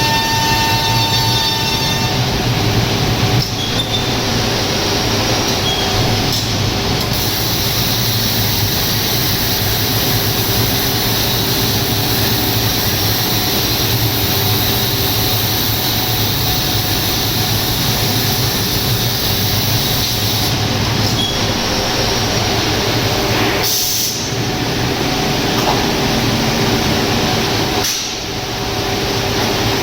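HOMAG CNC machining centre routing a round wooden table top: steady, loud cutting noise with a held tone under it, dipping briefly twice near the end.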